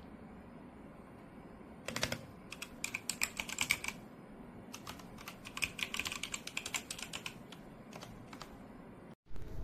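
Machenike K500 B61 mechanical keyboard being typed on: rapid key clicks in two runs, the first starting about two seconds in, then after a short pause a longer run.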